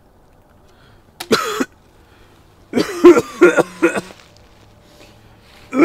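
A man coughing and choking: one short cough about a second in, then a quick run of four or five harsh coughs, and another starting near the end.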